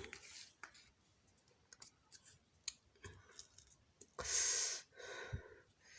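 Faint scattered clicks, then about four seconds in a breath close to the microphone, followed by a softer one.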